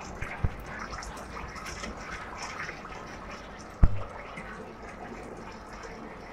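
Water from a garden hose pouring steadily into the water tank of an evaporative air cooler as it fills. One sharp knock a little under four seconds in, and a small click about half a second in.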